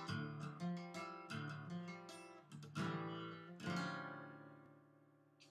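Acoustic guitar playing a picked-and-strummed riff, ending on a chord that rings out and fades away over the last couple of seconds.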